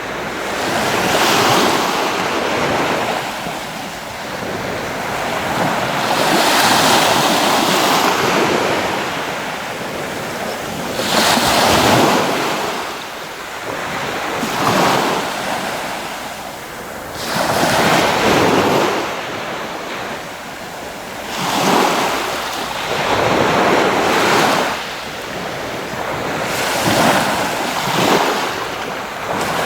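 Sea waves breaking and washing on the shore, surging in and falling back every few seconds, with wind rumbling on the microphone.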